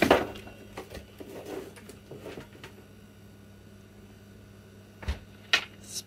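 Small clicks and rustles from handling a laptop motherboard in its plastic chassis and plugging in the display's LVDS ribbon cable. A low thump comes about five seconds in, then two sharp clicks near the end.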